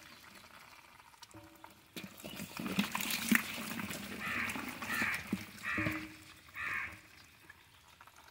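Live desi magur (walking catfish) squirming and slapping wetly against hands and each other in a shallow basin of water as they are scooped and stirred, with scattered clicks. About four seconds in come four short animal calls, spaced under a second apart.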